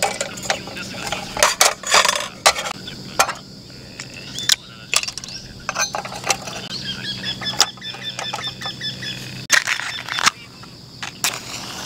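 Light clinks and taps of a small candle lantern being taken apart: its glass chimney and metal cap are set down on a metal camp table and a tealight is dropped into the metal base. The clicks come irregularly, a few close together in bursts.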